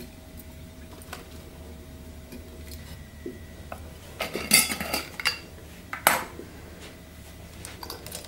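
Glass mason-jar drinking glasses with metal lids clinking together as they are handled: a short clatter of several clinks about four seconds in, then a single sharp clink about a second later.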